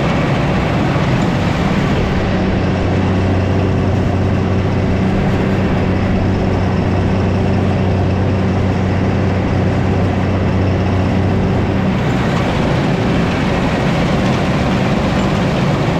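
Large self-propelled harvest machine running steadily at working speed: a constant low engine hum under a loud, even machinery rush.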